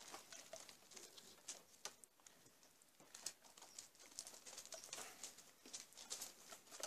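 Faint, irregular little clicks and pops from a brake master cylinder being bench-bled: air and brake fluid bubbling out of the bleeder tubes into its reservoir as the piston is slowly pumped.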